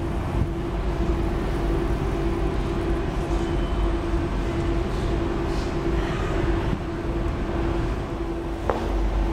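Paris Métro line 10 train running in the tunnel: a steady rumble with a constant hum and no change in level, and one short click near the end.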